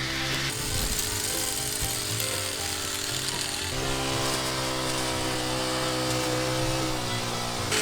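Background music with held notes over the buzzing of a battery-powered toy hedge trimmer.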